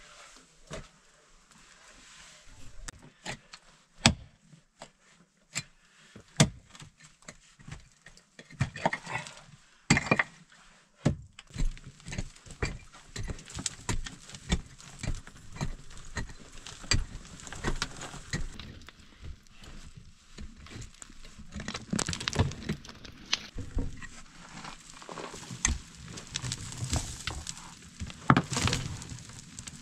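Stones knocking and clinking against one another as they are handled, then a dense run of scraping and dull knocks from digging dry, stony earth, with loose soil and grit pattering down.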